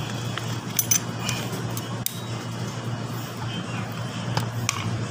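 Scattered sharp metallic clicks and clinks of a hand tool working on the motorcycle drum brake's arm bolt as it is loosened, over a steady low hum.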